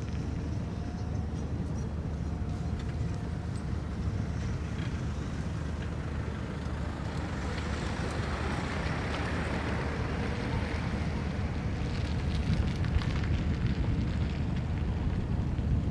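Steady low rumble with wind on the microphone. A hiss swells about halfway through and then eases.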